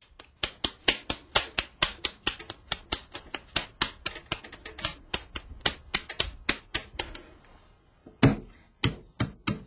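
Rapid, even tapping, about four to five sharp taps a second, that thins out around seven seconds in, followed by four louder, separate knocks near the end.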